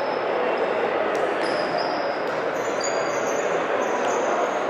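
Indoor volleyball match ambience: a steady crowd hubbub in a large hall. Over it, sneakers squeak briefly on the court several times, and there is a single sharp hit about a second in.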